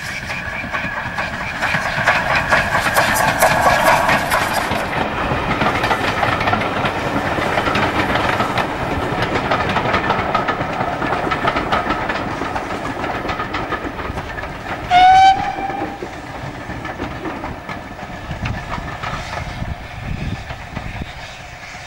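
GWR 5101 class 2-6-2T steam tank engine running past with its coaches, a steady rolling sound with a rapid even beat that grows fainter in the second half. About fifteen seconds in the locomotive gives one short whistle blast, rising slightly in pitch, the loudest sound here.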